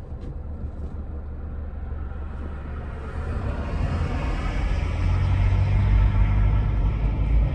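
Car cabin road noise: engine and tyre rumble that grows steadily louder from about three seconds in as the car picks up speed.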